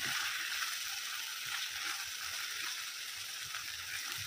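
Sweet corn kernels with capsicum and onion sizzling in hot oil in a steel kadai: a steady, even hiss, with the corn being fried until crisp.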